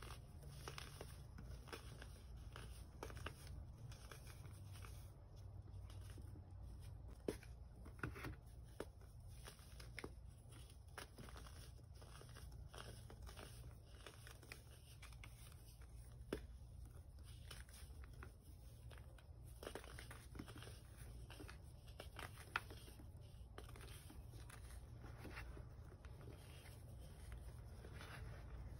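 Pressed baking soda chunks crushed and crumbled between the fingers into loose baking soda powder: soft crunching and crackling, with irregular sharp snaps, over a faint steady low hum.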